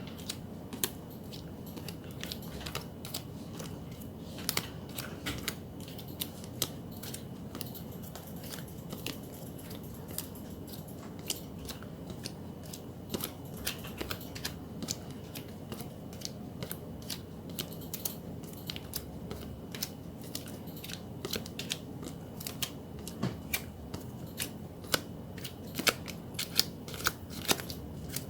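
Photocards being handled and sorted by hand, a run of many sharp little clicks and snaps of card stock, irregular and getting quicker near the end, over a steady low room hum.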